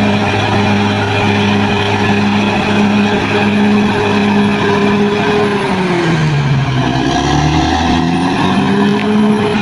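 Bulldozer diesel engine running steadily, dipping in speed about six seconds in and climbing back up about two seconds later.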